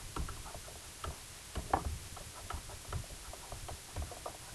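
Stylus writing on a tablet screen: a string of small, irregular taps and scratches with a few short squeaks as the pen forms letters.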